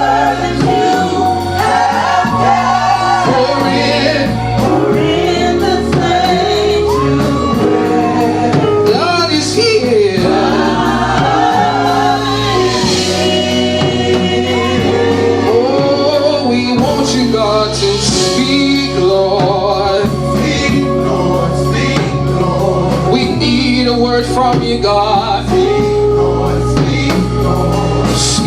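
Gospel worship music: singing over long held accompaniment chords and a bass line.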